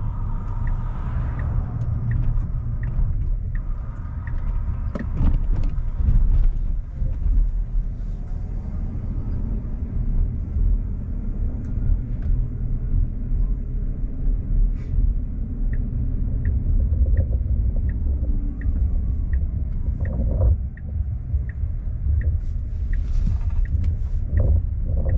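Low rumbling drone inside a 2025 Cybertruck's cabin while driving, which the owner found to be coming out of the truck's audio speakers. A steady run of short, high ticks about twice a second sounds over it.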